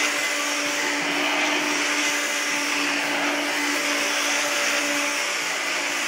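Hoover Turbo U2198 upright vacuum cleaner running steadily, its motor giving a loud, even hiss over a steady hum. The hum drops out about five seconds in.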